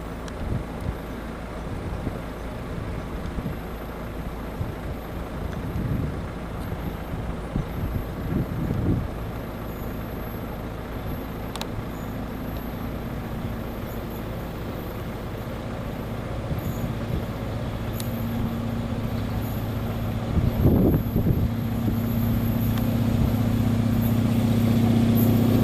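Diesel locomotive of the HŽ 2062 series (an EMD-built diesel-electric) approaching with a freight train, its engine droning steadily and growing louder as it nears. Gusts of wind on the microphone are heard in the first half.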